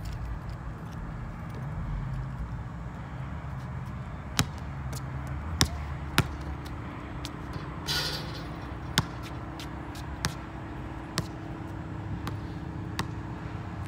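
Basketball bouncing on a concrete court: single sharp thuds at irregular intervals, a second or more apart. A brief hiss about eight seconds in, over a steady low background rumble.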